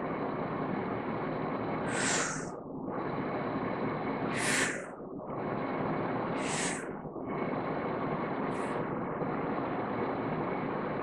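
A person's staged inhalation through the mouth: four short intakes of breath about two seconds apart, the last one smaller, filling the diaphragm, ribs, chest and then throat with a two-second hold after each. A steady background hiss runs underneath.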